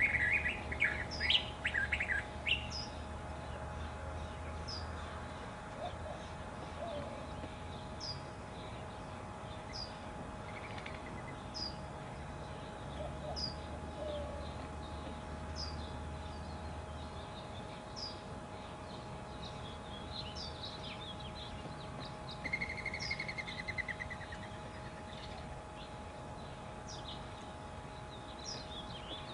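Wild birds calling: a burst of loud chirps at the start, then a short, high call note repeated about every second and a half, with a brief trill about two-thirds of the way through.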